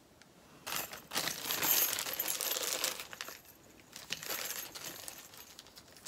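Hands rummaging through a stash of small decorative pine cones: dry rustling and light clicking, with a bag crinkling. It is busiest for the first few seconds and then trails off to scattered ticks.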